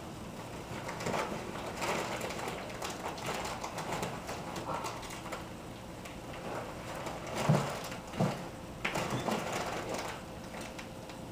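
Rustling and shuffling of a person moving in a small room, with two dull thumps about seven and a half and eight seconds in.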